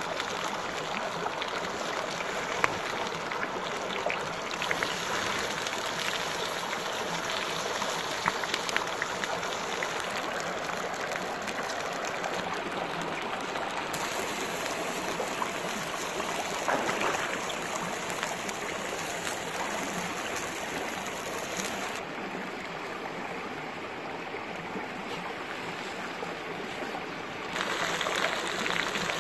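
Shallow stream running over rocks: a steady rush of water whose tone shifts abruptly a few times, with a few sharp crackles from the small wood fire.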